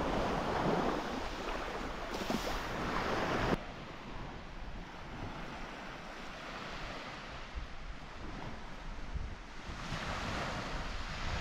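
Small sea waves washing onto a sandy shore, with wind on the microphone. The sound drops suddenly to a quieter wash about three and a half seconds in.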